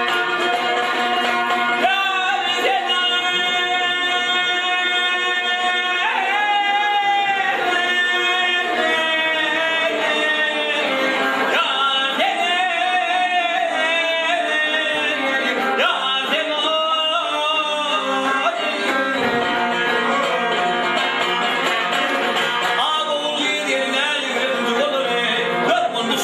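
Two Turkmen dutars strummed together with a man singing a traditional bagşy song over them. The voice comes in about two seconds in and holds long, wavering notes.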